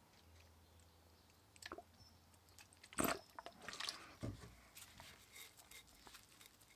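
Wet blue paper towel crinkling and squishing as it is wrapped and pressed around a hatchet head, soaked in vinegar to darken the steel. The crinkles are scattered, the loudest about three seconds in, with a dull knock just after four seconds.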